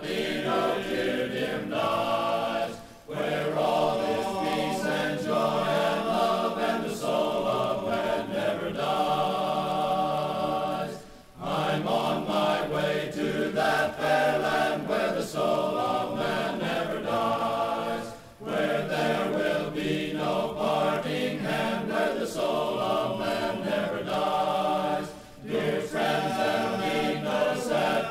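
Men's chorus singing a hymn unaccompanied, in long phrases broken by four short pauses about seven seconds apart.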